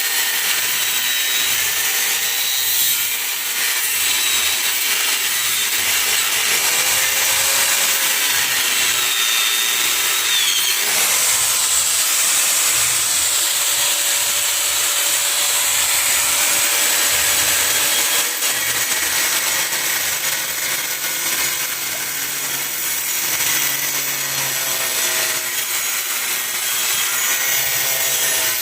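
Steady cutting noise of a tool sawing open the plastic case of a lead-acid inverter battery, with a few faint rising and falling tones.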